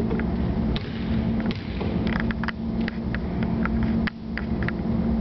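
Wall-mounted drinking fountain running as its push bar is held: a steady low hum that dips briefly about a second in and again near four seconds, with a scatter of small clicks and splashes in between.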